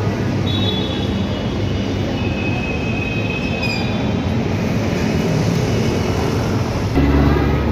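Loud, steady city traffic rumble with a thin high squeal running for a few seconds near the start. A heavier low rumble swells in near the end.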